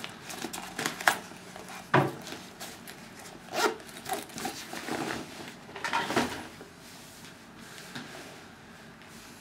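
Scattered knocks, taps and rustling of things being handled, the loudest knock about two seconds in, quieter after about seven seconds.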